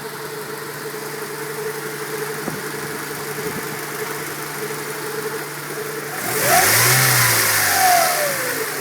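Honda B18C1 1.8-litre DOHC VTEC four-cylinder idling with a steady whine. About six seconds in it is revved once, and the whine rises and falls in pitch with the revs. The whine comes from a timing belt tensioned too tight; properly tensioning the belt cured it.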